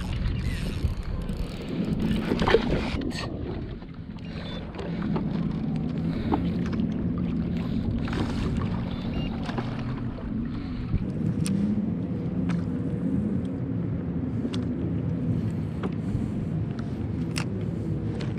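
Boat motor humming steadily on the water, with a higher steady tone joining about eleven seconds in. A rush of wind and water sounds at the start, and a few sharp clicks and knocks fall throughout.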